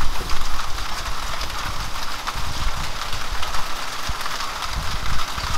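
Steady rain falling, an even hiss with many small drop ticks, over a low rumble.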